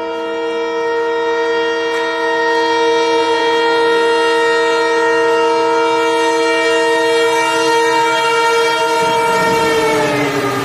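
Locomotive horn held in one long, loud, steady blast as a high-speed train approaches. Near the end its pitch drops as the locomotive passes, and the rush of the train running through rises beneath it.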